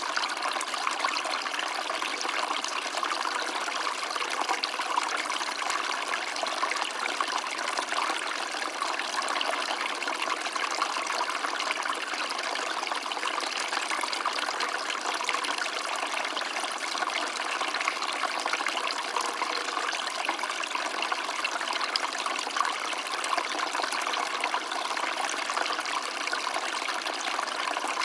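A stream of water trickling steadily: an even, splashy rush with no low rumble, unchanging throughout.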